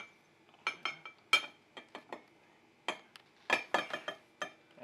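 Kitchen utensils clinking against a mixing bowl while an ingredient is poured in for pancake batter: about a dozen sharp, irregular clinks, each with a short ring.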